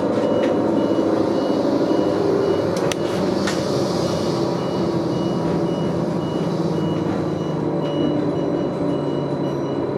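Interior of a moving Neoplan AN440LF electric trolleybus: its electric drive hums and its pitch shifts with speed under the road and body noise, while a high electronic beep repeats a few times a second throughout.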